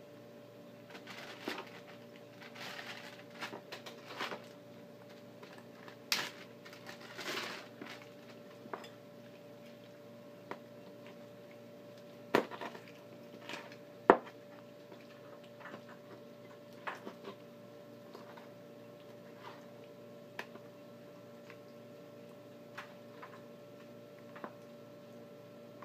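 Raw chicken being pulled apart by hand and cut with an ulu on a wooden cutting board: wet tearing and squishing, scattered knocks and clicks of meat, bone and blade on the board, with two louder sharp knocks around the middle. A faint steady hum runs underneath.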